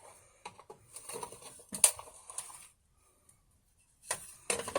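Light clicking and scraping of a screwdriver and hands working on a small generator's casing as it is opened up, with one sharper click just under two seconds in.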